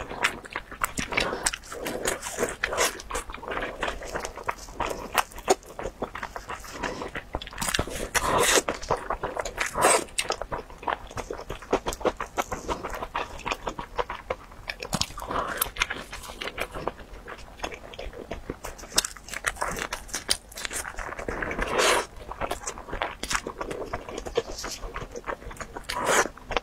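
Close-miked eating of crispy fried food: steady crackly crunching and chewing, with louder bites at intervals.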